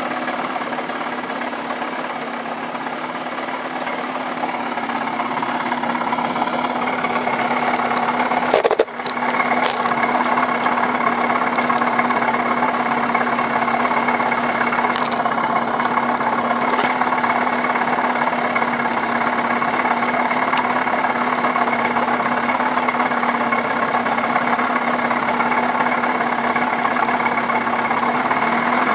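Johnson 25 hp outboard motor idling steadily at an even pitch, with a short click and dropout about nine seconds in.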